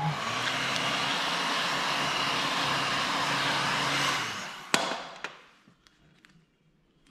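Electric heat gun blowing steadily with a low motor hum, warming smoke tint film on a car tail light, then switched off about four seconds in, its fan winding down; a single click follows.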